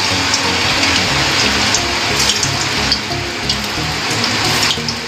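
Pieces of steamed chana-dal cake (dhoka) shallow-frying in hot oil in a kadhai: a steady sizzling hiss with scattered crackles.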